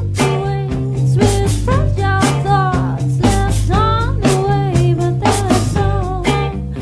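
A rock song: a singing voice over drum kit, bass and guitar, with a steady beat.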